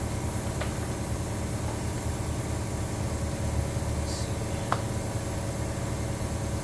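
A steady low mechanical drone, with a few light clicks over it.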